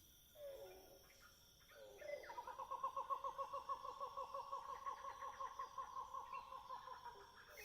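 Faint bird call: two short falling notes, then a long, even, rapidly pulsing trill held for about five seconds that stops just before the end.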